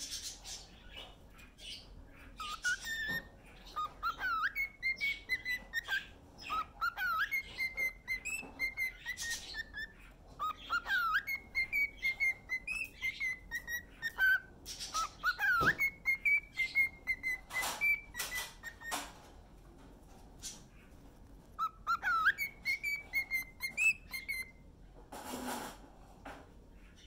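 Cockatiel whistling its song: repeated phrases of quick rising swoops that level off into held whistled notes, with soft clicks and chatter between them. It stops for about two seconds, then gives one more phrase near the end.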